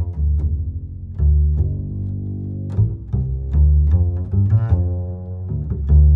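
Background music led by low string instruments, a steady run of deep, sustained notes with plucked attacks.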